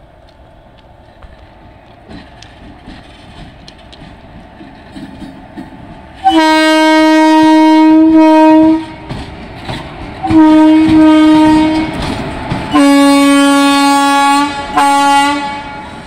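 Horn of a WAP-4 electric locomotive sounding four times, a long blast, two shorter ones and a brief final toot, as the locomotive approaches with its wheels clattering on the track.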